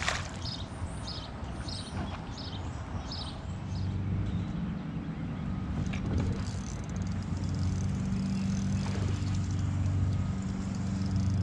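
Bow-mounted electric trolling motor running with a steady low hum that comes in a few seconds in and cuts out briefly now and then. Before it, there is a run of short high chirps, about two or three a second.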